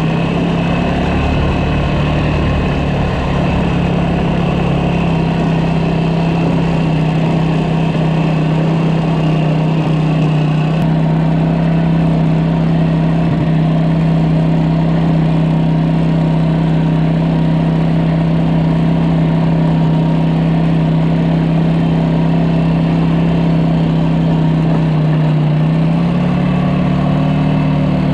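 A vehicle engine running at a steady speed with a low, even hum, its note stepping up slightly near the end.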